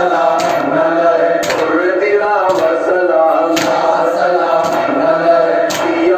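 Male voices chanting a Shia devotional recitation in a steady melodic line, with a sharp beat about once a second.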